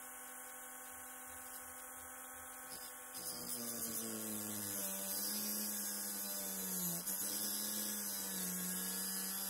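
Small rotary tool with a thin cut-off disc running with a steady whine, then grinding into a steel screwdriver bit from about three seconds in. Its pitch drops a little and wavers under load, with a grinding hiss, as the bit's tip is shaped into a triangle.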